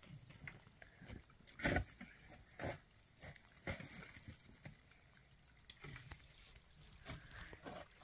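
Faint trickling and dripping water, with scattered light knocks and clicks, the clearest about two, three and four seconds in.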